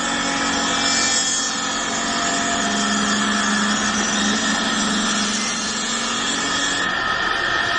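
Multi-head CNC wood lathe running and machining a wooden workpiece: a steady machine whine over a noisy hiss of cutting. A lower hum drops away about a second before the end.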